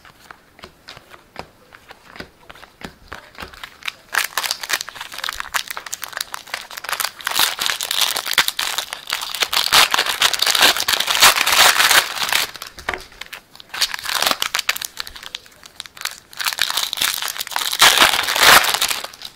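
Foil wrapper of a Topps Chrome baseball card pack being torn open and crinkled by hand, loud crackling in bursts from about four seconds in, after a few light clicks at first.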